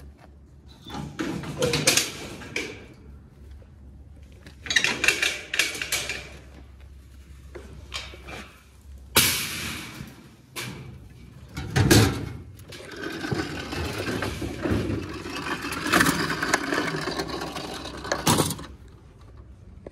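Steel-mesh utility trailer ramp gate being handled and lowered: bursts of metal rattling and scraping, a heavy clank about twelve seconds in, then a longer stretch of rattling that stops shortly before the end.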